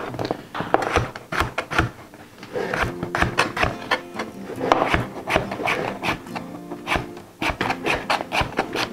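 Chef's knife chopping cucuzza squash into chunks on a plastic cutting board: a run of irregular knife strikes on the board. Background music comes in a couple of seconds in.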